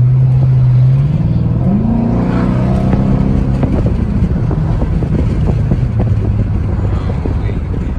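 Straight-piped 5.7 HEMI V8, with mufflers and resonators removed, pulling under way. The exhaust note rises in pitch as it accelerates, drops back about three and a half seconds in, then runs steadier and lower.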